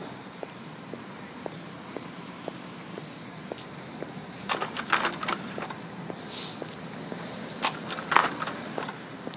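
Footsteps walking at an even pace, about two steps a second, over a steady low hiss. About halfway through and again near the end come brief, louder clattering noises.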